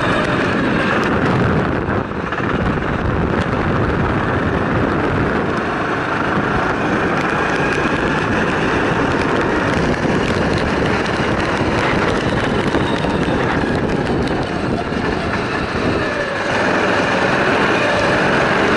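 Go-kart engine running hard as the kart laps, heard from a camera mounted on the kart with wind noise over it. The engine eases briefly about two seconds in and again shortly before the end, then picks up as the kart accelerates.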